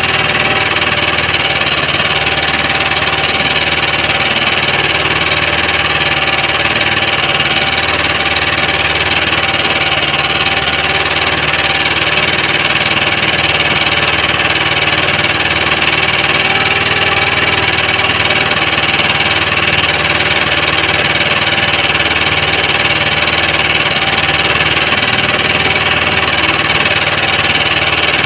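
Small engine aboard an outrigger fishing boat, running steadily at idle with no change in speed.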